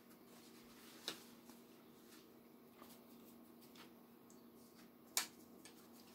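Near silence: room tone with a faint steady hum, broken by two short clicks, a small one about a second in and a sharper one about five seconds in.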